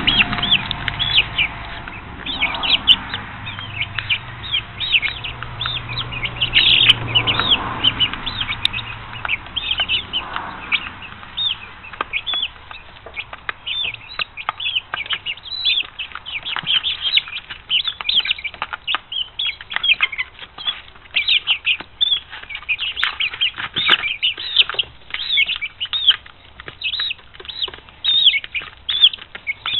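A brood of five-week-old chicks peeping constantly, many short high chirps overlapping several times a second, with scattered light ticks of beaks pecking at a plastic trough feeder.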